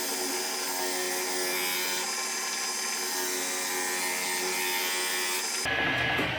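Myford ML8 lathe running a homemade 12-inch disc sander: a steady motor hum with a hiss over it as a wooden shroud piece is sanded against the disc. Near the end the sound changes abruptly, the hiss falling away and a lower rumble taking over.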